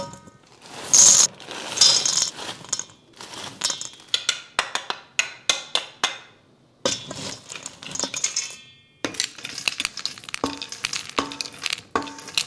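Jelly beans and gummy candies poured into a big jar, rattling and clinking in quick runs of small hard clicks, with a couple of louder bursts near the start and short pauses between pours.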